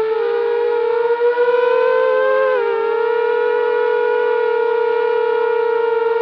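A 250-size racing quadcopter's four DYS MR2304 2150kv brushless motors and propellers give a steady whine while it hovers. The pitch rises slowly, drops sharply about two and a half seconds in as throttle comes off, then holds steady.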